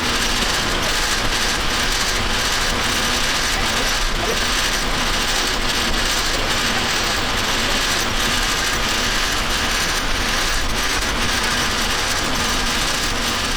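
Hay elevator running, its chain and slats clattering and ticking steadily as it carries square hay bales up into the barn.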